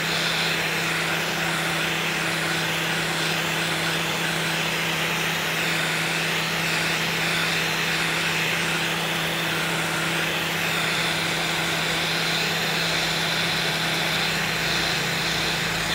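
Industrial heat gun running steadily, its fan blowing a constant rush of hot air onto a leather panel, with a low steady hum underneath.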